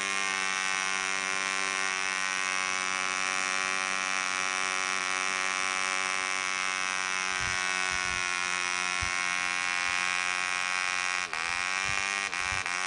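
Clanford Clan 0.48 cc model diesel engine, a two-stroke compression-ignition engine, running at a steady high buzz while it spins a 7x4 nylon propeller. Near the end its pitch dips sharply and recovers twice as the compression lever on the cylinder head is adjusted.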